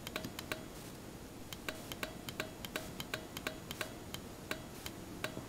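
A 30-amp automotive relay clicking over and over, about three to four faint, sharp clicks a second at an uneven pace. Each click is the relay's spring-loaded armature snapping its contacts together or apart as the trigger wire makes and breaks contact with a 9-volt battery.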